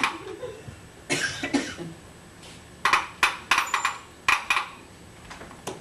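Hard plastic clacks and knocks from a toddler's ride-on toy car as it is pushed and bumped, coming in several short bursts of quick, sharp clicks.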